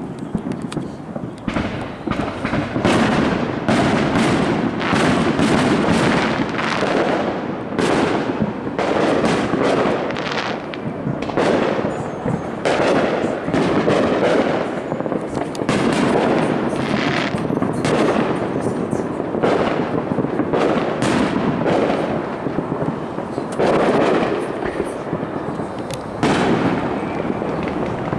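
Fireworks going off in rapid succession: a dense, unbroken run of bangs and crackles.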